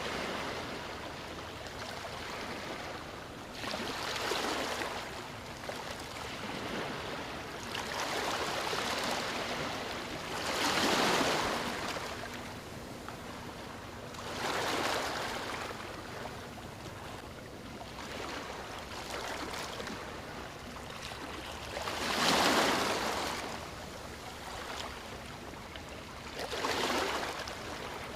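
Ocean waves breaking and washing up a beach: a steady hiss of surf that swells with each wave every few seconds, the loudest waves a little over a third of the way in and again about three quarters through.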